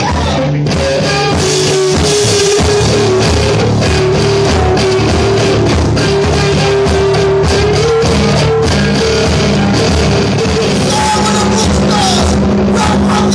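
Rock band playing live: electric guitar, bass guitar and drum kit, loud and steady throughout.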